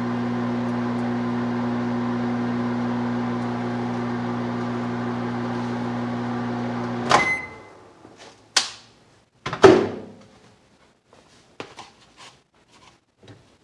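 Microwave oven running with a steady hum that cuts off abruptly with a click about seven seconds in. Then a series of knocks and clatters as a plate of food is handled and set down on the counter, the loudest a couple of seconds after the hum stops.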